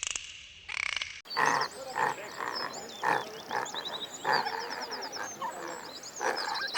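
An animal giving short calls, repeated every half second to a second, with birds chirping higher up in the background; the sound cuts in sharply about a second in.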